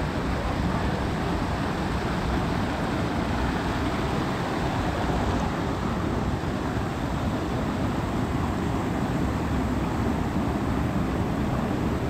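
Steady rush of a mountain stream and small waterfall running over rocks.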